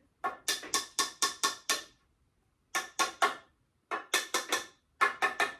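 Bursts of sharp, ringing metallic clicks, about four a second, from a tool working the metal hardware of a bed frame as it is fastened; four bursts with short pauses between.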